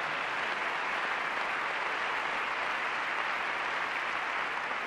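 Large seated audience applauding steadily in an auditorium.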